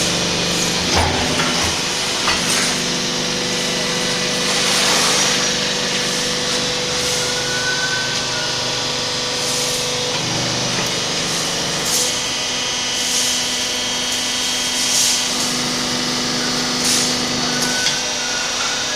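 Hydraulic scrap-baling press running steadily with a constant pump whine while it compresses loose scrap iron into a block, with short sharp metallic noises every couple of seconds.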